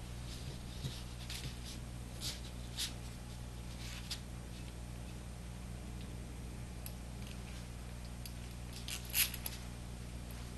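Small clicks and light rattles of the record player's motor and metal mounting plate being handled and fitted together by hand, with a sharper click about nine seconds in, over a steady low hum.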